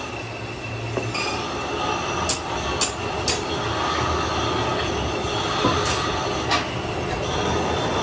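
A few sharp metal clicks as steel bearing cups and a universal-joint cross are handled and fitted into a yoke, over a steady mechanical drone of workshop machinery.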